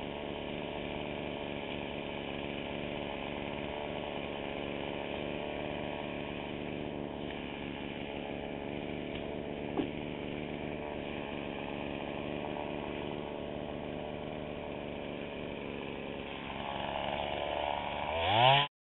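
Gasoline chainsaw idling steadily, with a single short knock about halfway through. Near the end it is revved up, rising in pitch, and then cuts off suddenly.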